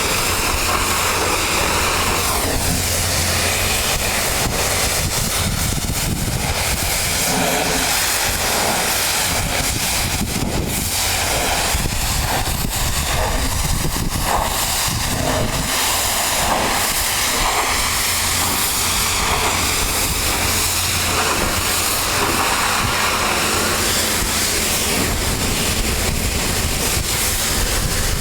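Pressure washer running, its spray hissing steadily over a low engine or pump hum.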